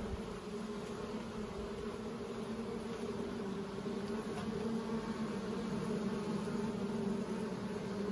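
Steady hum of a honey bee colony in an opened hive, many bees buzzing on and around a lifted brood frame. The drone holds one low pitch and grows a little louder toward the end.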